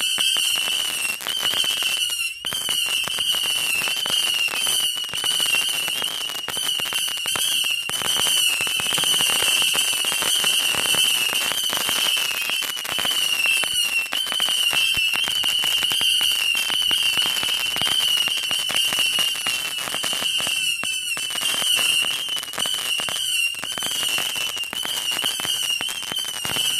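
A 750-shot firework barrage firing shot after shot without a break: a steady, wavering whistle with many rapid pops and crackles over it.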